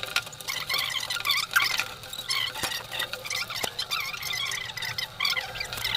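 Dry cloth rubbing and wiping over the plastic RO pump head fitting, a continuous scratchy rustle broken by many short squeaks.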